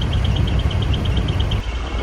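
Low rumble of an idling truck engine, with a rapid high electronic beeping of about twelve pulses a second over it that turns into a steadier tone near the end.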